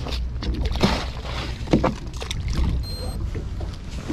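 Handling noises of fishing gear on a small boat: scattered knocks and rustles over a low steady rumble, with the two loudest knocks about one and two seconds in.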